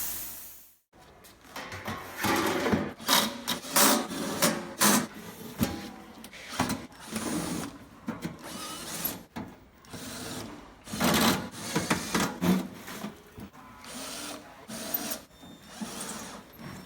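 Workshop tool noise: irregular short bursts of clattering, scraping and brief whirring as tools are worked on the machine.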